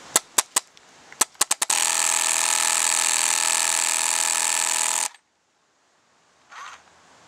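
SL74 electronic paintball marker in training mode: a few single clicking shots, then a continuous rapid-fire burst of about three and a half seconds, cycling at around 41 shots a second so that it runs together into a steady buzz, which cuts off abruptly.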